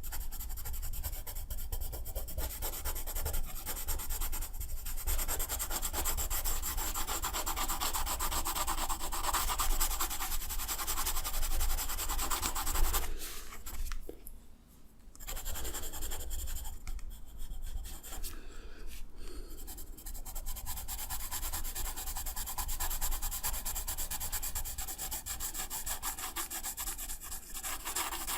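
Fast back-and-forth rubbing of a drawing tool on paper, dense and continuous, stopping briefly about halfway through.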